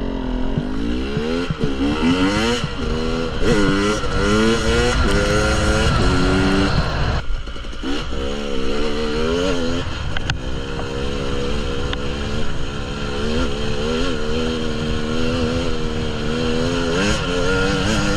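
KTM 300 EXC two-stroke enduro motorcycle engine revving up and down repeatedly as it is ridden, with a short drop in revs about seven seconds in.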